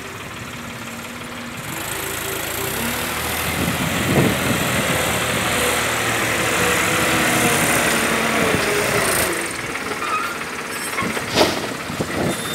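Diesel tractor engine running and revving up to drive a front-end loader's hydraulics as the bucket is raised, then easing off. A sharp knock comes near the end as the bucket is dumped.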